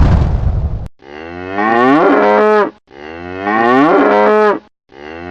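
Cow mooing: the same long call sounds twice, each sliding up in pitch and then holding steady, and a third starts at the end. A loud crackling rustle fills the first second.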